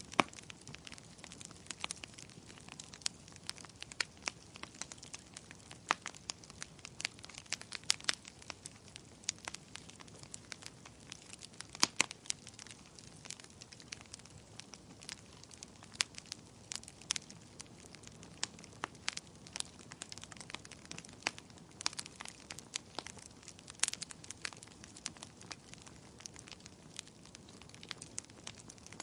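Campfire burning: wood crackling and popping in sharp, irregular snaps over a soft steady hiss.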